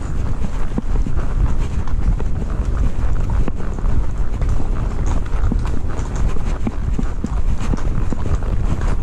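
Horse's hooves clip-clopping, a run of short knocks, over a heavy low rumble of wind on the microphone.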